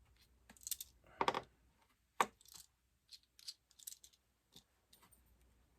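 Scattered clicks and clanks of vice grips and small metal hardware being handled while working at a stuck bolt on a kayak seat's hip-pad rail, with a sharp knock about two seconds in.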